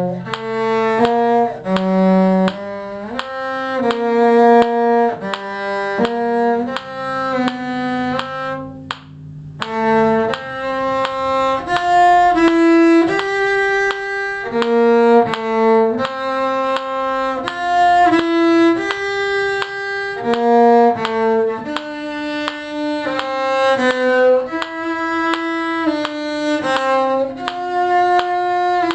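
Cello and violin playing a string duet, the cello part bowed at a moderate tempo in a steady run of notes, with a short break about nine seconds in.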